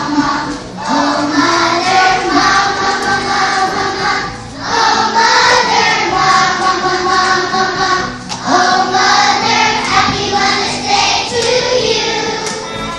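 A group of children singing a song together, with short breaks between phrases about four and eight seconds in.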